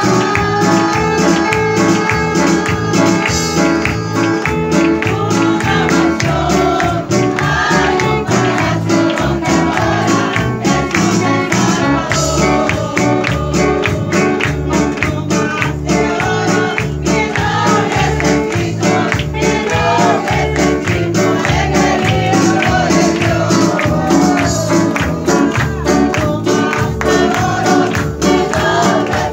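Live gospel worship music with a steady beat, the congregation singing and clapping their hands along.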